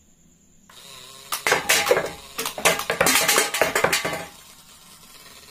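Two stacked aluminium drink cans hit by cardboard projectiles from a rubber-band toy grenade launcher, clattering and ringing as they topple and roll. It is a quick run of sharp knocks that starts about a second and a half in and stops about three seconds later.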